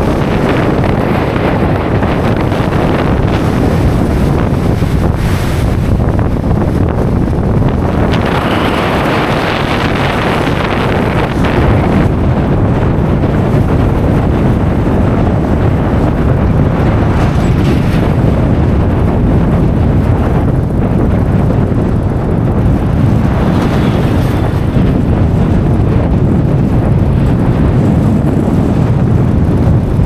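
Gale-force wind buffeting the microphone: a loud, continuous low rumble that rises and falls with the gusts, with one stronger swell about eight to eleven seconds in.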